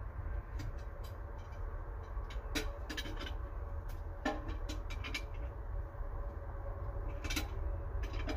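Tigercat 822 feller buncher's diesel engine idling steadily, a low rumble with a steady hum over it, while its 5185 bar saw head sits still. Scattered short clicks and knocks come over it, a cluster around the middle and another near the end.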